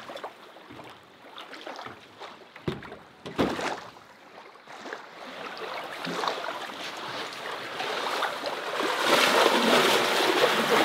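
Wading through shallow lake water beside a floatplane's float, sloshing that swells over the second half and is loudest near the end. A few short knocks come in the first few seconds.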